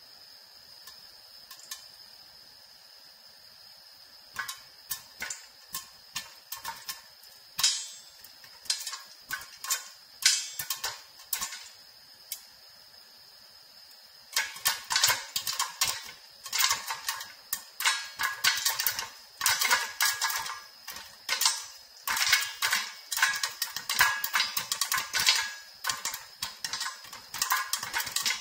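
Popcorn kernels popping inside a lidded stainless-steel pot on a gas hob, sounding against the lid. A few scattered pops start about four seconds in, and just past halfway they turn into fast, almost continuous popping. A faint steady high hiss sits under the first half.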